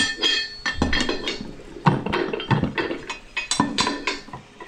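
Irregular metallic clinks and knocks of a steel hand tool working on a tractor's front-axle hub parts, some strikes ringing briefly.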